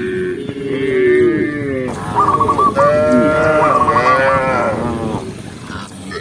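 Several cows mooing, their long calls overlapping one after another and fading near the end.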